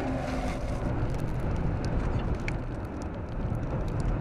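Outflow winds of over 60 mph buffeting a vehicle, heard as a steady low rumble with scattered faint ticks.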